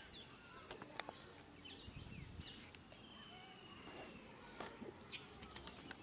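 Faint outdoor ambience: quiet high chirps and scattered small clicks, with one sharper click about a second in.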